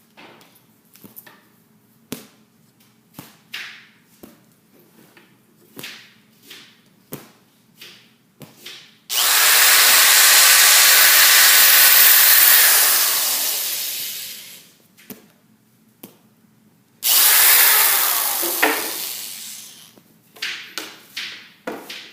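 Power drill boring a small hole in wood: two runs, the first starting suddenly about nine seconds in and lasting about five seconds, the second shorter at about three seconds, each fading away at the end. Light knocks and clicks of handling the wood and drill come in between.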